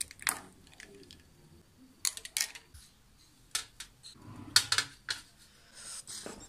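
Ice cubes dropped into a glass mug of a milky drink: a series of sharp clinks and taps against the glass, the loudest about four and a half seconds in.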